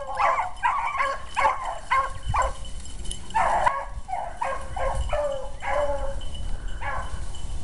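Beagle hounds baying in a run of short, repeated barks, about two a second, as they work a cottontail rabbit's scent trail.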